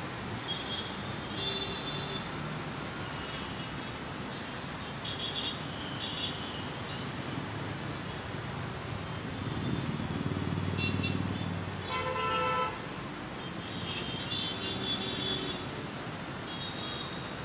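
Street traffic ambience: steady road noise with a vehicle passing about ten seconds in, then one short vehicle horn honk about twelve seconds in. Brief high chirps come and go throughout.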